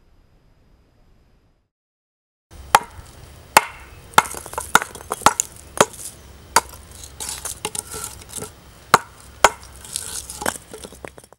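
Pommel of a Cavallini Explorer bushcraft knife hammering a clay brick. A dozen or more hard, irregular blows start about two and a half seconds in, with small crumbling clatters between them as the brick breaks apart.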